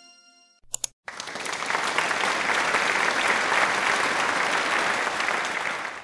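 Applause, starting suddenly about a second in and holding steady until it stops near the end. Before it, electronic background music fades out and there is a short blip.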